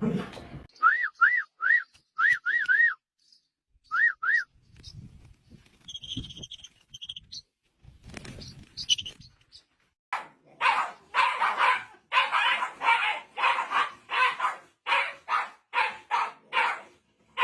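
A run of short high-pitched chirps, then from about ten seconds in a dog barking rapidly and repeatedly.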